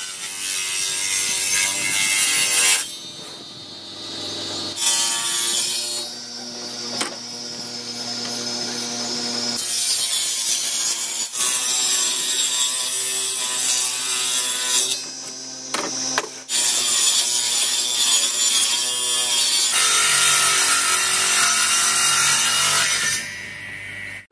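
Table saw ripping plywood sheet: a steady, noisy cutting sound over the whine of the running blade. It drops away and comes back abruptly several times.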